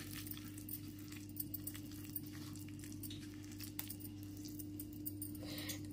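Fingers squeezing and mixing a wet masala paste in a stone mortar: faint squishing with scattered small clicks, over a steady low hum.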